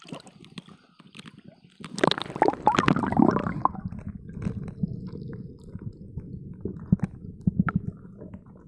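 Muffled rubbing and scraping handling noise from a phone in a waterproof pouch as a hand gropes over wet rock. Scattered faint clicks at first, then from about two seconds in a louder spell of rubbing with a steady low rumble and sharp ticks.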